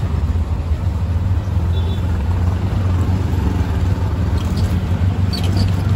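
Steady low rumble of street traffic and a moving vehicle, with two brief high beeps near the end.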